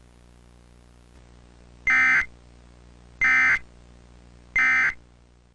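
Three short Emergency Alert System (SAME) data bursts, the end-of-message code, each a buzzy two-tone chirp under half a second long and about 1.3 s apart, signalling that the alert message is over.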